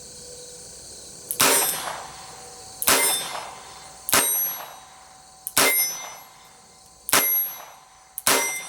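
A .22 LR target revolver fired six times, one shot about every second and a half, each a sharp crack with a short ringing tail. A faint click comes just before two of the shots.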